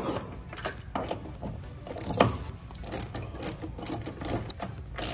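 Hand ratchet with a half-inch deep-well socket clicking in short, irregular runs as it tightens stainless nylock nuts onto the cleat's through-bolts.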